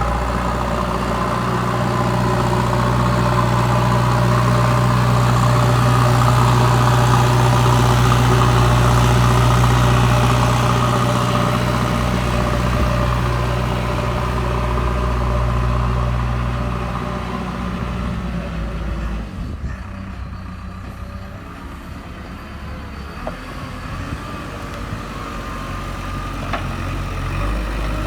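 JCB 3DX backhoe loader's diesel engine running with a steady hum, loud through most of the time, then dropping lower and quieter about two-thirds through before picking up again near the end.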